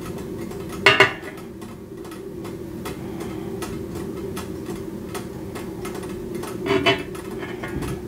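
Melted candle wax pouring from a metal pouring pitcher into a glass candle jar, over a steady low hum and light, irregular ticking. Two brief louder knocks, about a second in and again near the end, are likely the pitcher touching the jar.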